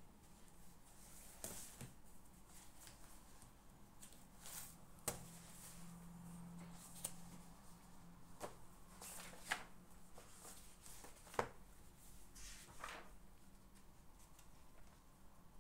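Faint desk sounds of someone studying: soft paper-like rustles and a few sharp light clicks or taps, spread irregularly over a quiet room with a faint low hum.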